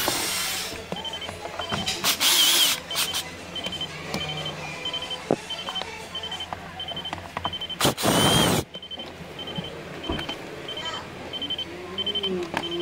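Ridgid cordless drill-driver running in three short bursts, the longest about eight seconds in, as it backs out plastic trim screws; its whir rises a little in pitch each time it spins up. Under it a high electronic beep repeats steadily, about two to three times a second.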